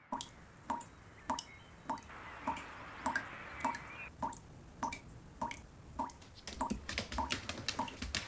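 Water dripping in a steady rhythm, a single drop landing a little under twice a second.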